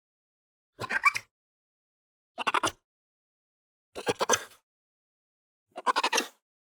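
Honey badger chirping: four short calls of about half a second each, spaced about a second and a half apart.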